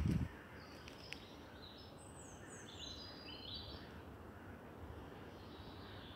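Small songbird singing: phrases of short high notes stepping down in pitch, heard a few times over quiet open-air background. A brief low thump at the very start.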